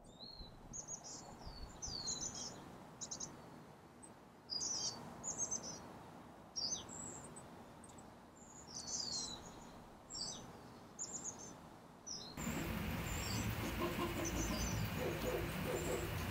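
Small birds chirping and singing in quick, high, repeated calls, some sweeping downward. About twelve seconds in, a louder steady background noise with a low hum suddenly comes in beneath them.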